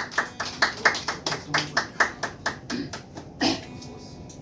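A small audience clapping after a song, about four claps a second, thinning out after about three seconds, with one louder knock near the end.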